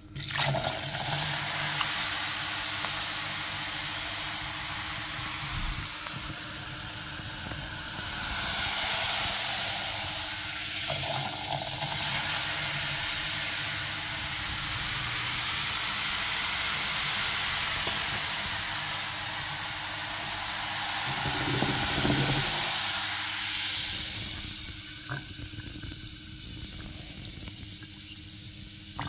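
Cola in an open blender jar fizzing hard as a green liquid is poured in: a steady hiss of foaming bubbles that swells about eight seconds in and dies down near the end.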